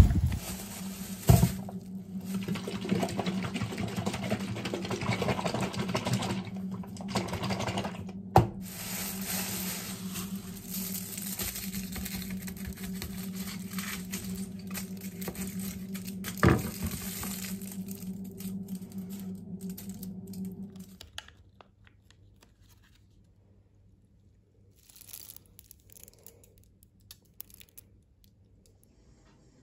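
Crinkling of a plastic carrier bag and aluminium foil being handled over a steady low hum, with a few sharp knocks. About two-thirds of the way in, the hum stops, and only faint small handling sounds remain.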